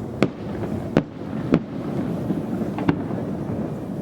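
Fireworks bursting overhead: four sharp bangs in about three seconds, over a steady low rumble.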